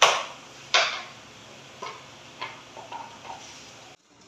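Hands slapping and tapping a glossy UV marble-effect wall board to press it flat against the wall: two loud sharp slaps less than a second apart, then several lighter taps.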